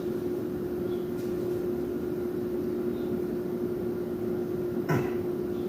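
A steady hum at one constant pitch over a background hiss, with a brief short noise about five seconds in.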